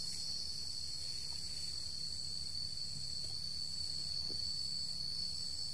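Crickets chirring in one steady, unbroken high-pitched trill, over a faint low hum.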